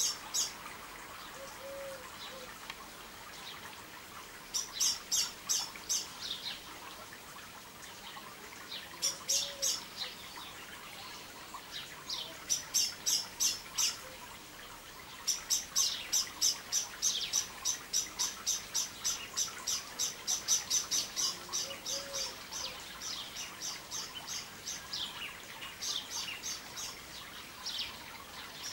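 Small birds chirping in bouts of short, high, sharp chirps, the longest a run of about three chirps a second lasting over ten seconds, over a faint steady background hiss.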